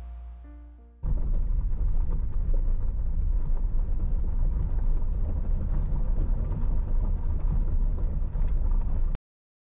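Background music fading out, then a loud, unsteady low rumble that cuts off abruptly near the end.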